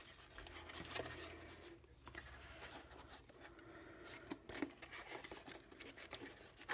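Faint scraping and rustling of a small cardboard box being opened and its cardboard insert pulled out by hand, with a few light clicks and taps.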